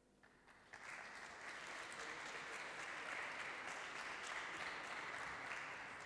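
Audience applauding, starting about a second in and tapering off slightly near the end.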